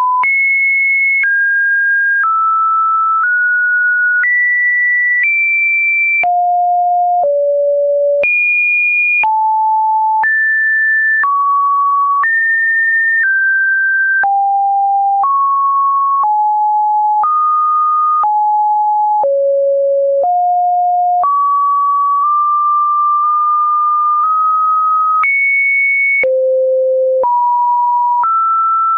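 Computer-generated pure sine tones, one after another, each lasting about a second at a new pitch that jumps up and down between mid and high, with a faint click at each change.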